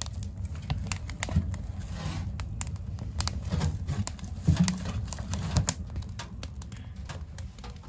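Wood fire crackling and popping in the open firebox of a wood-burning tent stove, over a steady low rumble of the burn. A few heavier wooden knocks come as split logs are set onto the fire.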